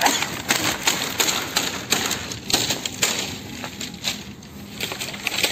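Dense, rapid crackling and rustling of dry palm fronds, keeping up a fast irregular patter of small cracks without a pause.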